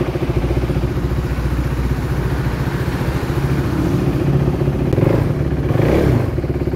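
A KTM Duke 390's single-cylinder engine idling with an even, fast pulse, revved up briefly about five to six seconds in and then settling back to idle.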